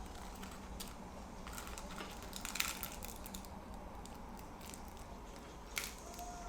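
Scattered soft clicks and taps over a steady low hum, with two sharper clicks, one about two and a half seconds in and one near the end.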